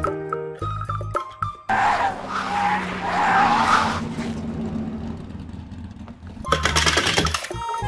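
Children's music that cuts out about two seconds in to the screech of a cartoon race car's tyres skidding over stadium crowd noise, fading after a couple of seconds. A loud burst of crowd noise comes near the end, and then the music returns.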